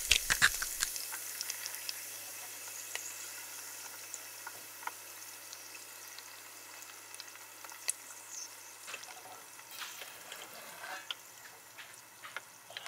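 Eggs frying in a pan, a steady sizzle with scattered pops and crackles. It starts loud and slowly dies down, with a few sharper clicks in the second half.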